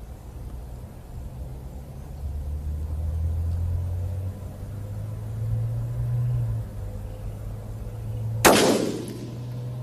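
A single shot from a 6mm Creedmoor F-class rifle near the end: one sharp, loud crack with a short ringing tail. A steady low rumble runs underneath.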